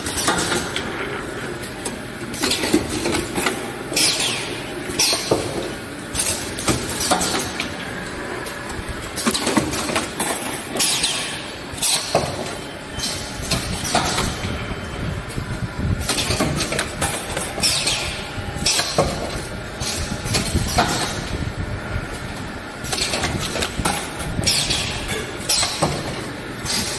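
Automatic spider-strainer wire welding machine running: its air-driven cylinders and clamps give short hisses and clacks, irregularly about every second or two, over a steady machine hum.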